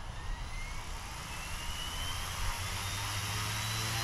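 FW200 RC helicopter's direct-drive electric motor spooling up on the ground, a whine rising slowly and steadily in pitch. A low steady hum builds up under it near the end as the rotor comes up to speed.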